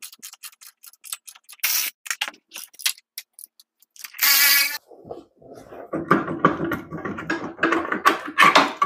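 Cordless ratchet running bolts out of a drum brake backing plate: scattered clicks, then a short motor whir about four seconds in. After that comes a stretch of metal rattling, knocking and scraping as the brake backing plate assembly is worked off the spindle.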